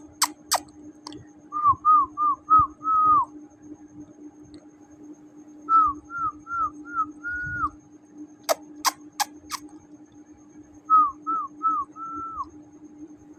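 A whistled tune, most likely a music track: three phrases of four short notes each ending on a longer note that drops away, with runs of sharp snap-like clicks between the phrases, over a steady low hum.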